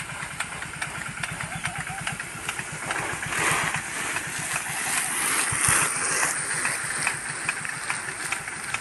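Rain gun irrigation running in a field: a steady engine-like throbbing with regular sharp ticks. A louder rush of noise swells from about three seconds in and fades about three seconds later.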